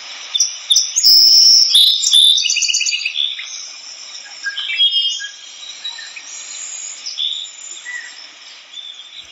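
Jungle soundscape recording: a mix of tropical bird calls, chirps, whistles and rapid trills over a steady insect-like hiss, loudest in the first few seconds.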